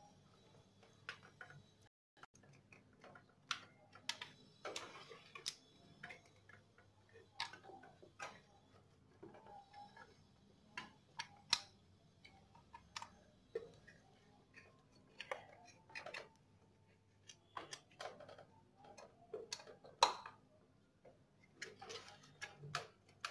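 Irregular small clicks, taps and rustles of plastic wiring connectors and wires being handled and unplugged inside a motorcycle headlight housing, the sharpest click near the end.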